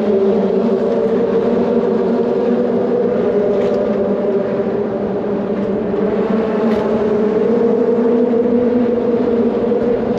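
A steady engine drone that holds the same pitch throughout.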